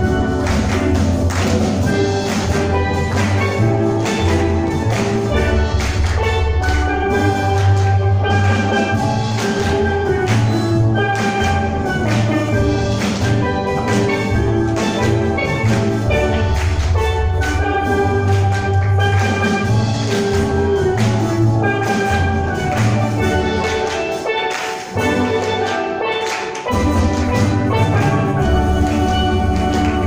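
Steel pan ensemble playing a tune live, many pans struck together over a deep bass part. A few seconds before the end the bass drops out briefly, then the full band comes back in.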